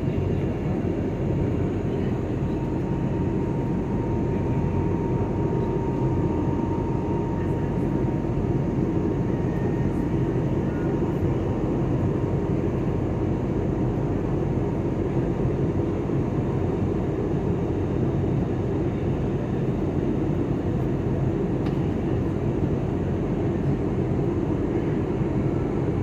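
Steady engine and airflow noise inside an airliner's passenger cabin in flight, deep and even, with a faint high tone in roughly the first ten seconds.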